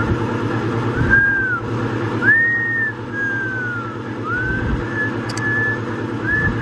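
A person whistling a loose tune: several short pure notes that arch, slide down and slide up, then a few brief level notes near the end. A steady low machine hum runs underneath.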